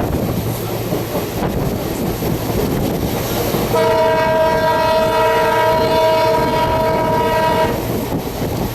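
WDP4D diesel locomotive's horn sounding one long blast, several tones at once, beginning about four seconds in and lasting about four seconds. The rumble and clickety-clack of the passing train run throughout.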